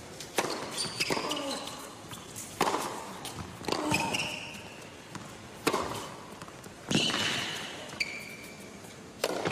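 Tennis ball being struck back and forth in a rally on an indoor hard court: sharp racket-on-ball pops about every one to two seconds, with brief high shoe squeaks on the court surface between shots.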